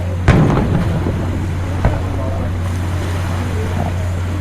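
Fireworks going off: a loud boom about a third of a second in with a short rumbling tail, then a smaller bang just before two seconds, over a steady low hum.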